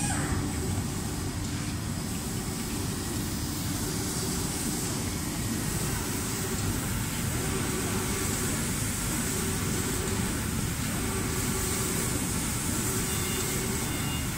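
Automatic spray painting line for cabinet doors running in its spray booth: steady machine noise, a low rumble with a hiss over it.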